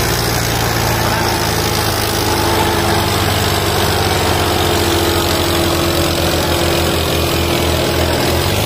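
Diesel tractor engines running loud and steady, the Sonalika nearest, under heavy pulling load as it drags against another tractor hitched behind it, its front wheels lifting. In the second half the low engine note turns into a slower, distinct throb as the engine labours.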